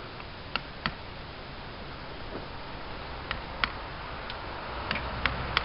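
Mallet striking a wood chisel into a tree-trunk carving: sharp, irregular taps, two near the start and then about six more in a quicker run in the second half.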